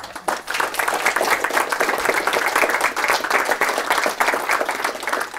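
Audience applauding: many people clapping together, starting abruptly and keeping up a dense, steady sound.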